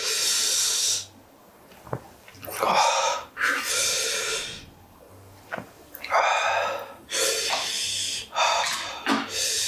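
A man's repeated hard, hissing breaths in and out through the mouth, about seven in a row, the reaction to the heat of spicy Korean chicken feet. Two light clicks come in between, around two seconds in and again past the middle.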